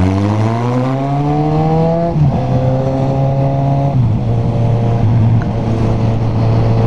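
Motorcycle engine through an open exhaust pipe with its end tip removed, pulling up in pitch for about two seconds, then dropping twice as it shifts up a gear, about two seconds apart, and running steady after.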